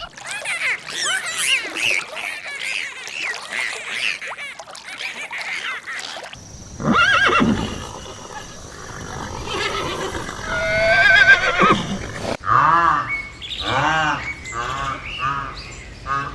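Farm animal calls in three short clips one after another: first many overlapping high chirps, then a loud call and a wavering high call, then a string of short repeated calls.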